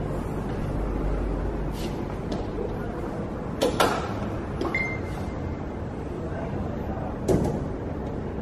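Clunks and clicks of a Lamborghini Aventador's rear engine cover being opened and handled, over steady showroom room noise. There is a double clunk about three and a half seconds in, another a second later, and one more near the end, with a short high beep about five seconds in.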